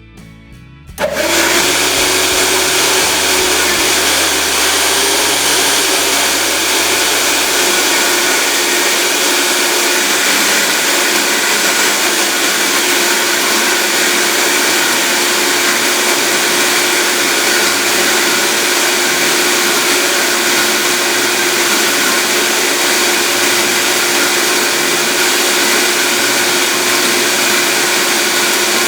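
Blender switching on about a second in and running steadily, blending cashews, cilantro, garlic, green onion and water into a creamy sauce.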